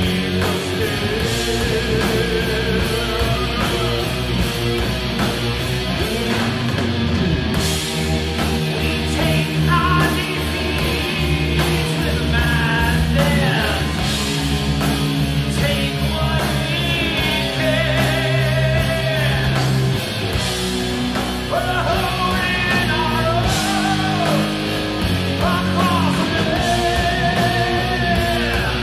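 Live hard rock band playing: a lead vocal singing and holding notes over distorted electric guitars, bass guitar and drums.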